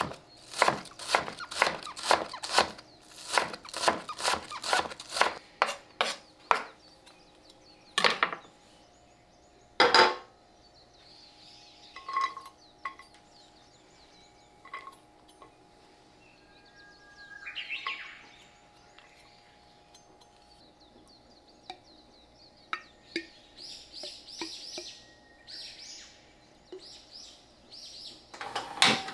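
J.A. Henckels chef's knife chopping garlic on a wooden cutting board, a quick even run of about three chops a second for six or seven seconds. Two heavier knocks follow, then scattered light clinks and scrapes as the minced ingredients go into a frying pan.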